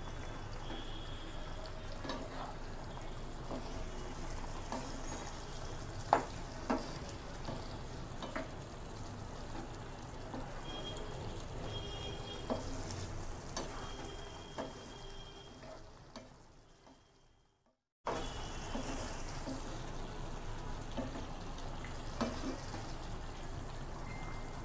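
Pumpkin pieces bubbling and sizzling in oil and water in a frying pan, with a wooden spatula stirring and a few sharp knocks against the pan. The sizzle fades out about two-thirds of the way through, then cuts back in abruptly.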